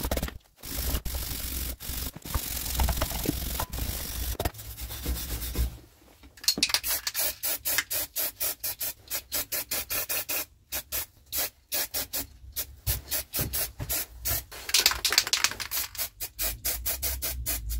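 Steel wire brush scrubbing the freshly welded steel of a rake to clean the weld. It scrubs continuously for the first six seconds, pauses briefly, then goes on in quick back-and-forth strokes, about two or three a second.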